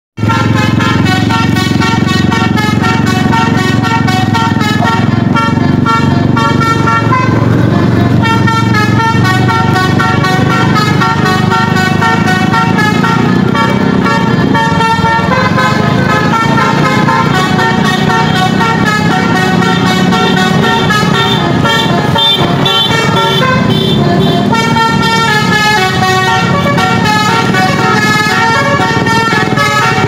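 Bus's multi-trumpet 'telolet basuri' horn playing a melody of many notes that step from pitch to pitch without pause, over a steady low vehicle noise.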